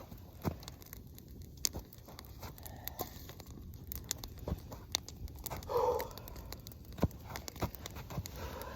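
Irregular snaps, cracks and rustles of sticks and brush being handled and stepped on, with a short grunt about six seconds in.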